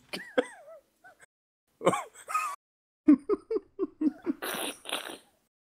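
Men laughing: a short chuckle near the start, then a run of quick 'ha-ha-ha' pulses about three seconds in, ending in breathy, wheezing laughs.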